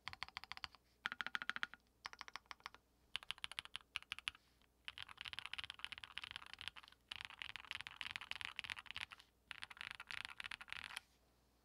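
Fast typing on a Monstargear Sangeo60 custom 60% mechanical keyboard with an aluminium plate, lubed 55 g Durock POM linear switches and PBT keycaps. The keystrokes come in quick runs with short pauses, the runs getting longer in the second half, and stop about a second before the end.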